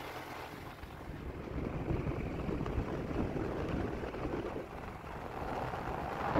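Wind rumbling on the microphone of a moving vehicle, with the vehicle's running noise underneath. It swells about a second and a half in.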